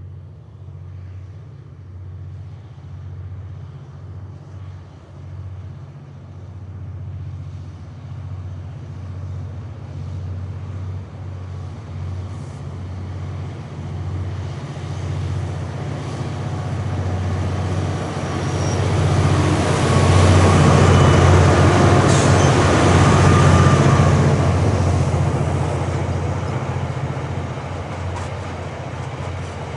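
Two ex-Queensland 2300 class diesel-electric locomotives with V12 EMD engines working hard, hauling a loaded gypsum train up a grade. The steady engine drone grows as they approach, is loudest as they pass about two-thirds of the way in, then eases as the loaded hopper wagons roll by.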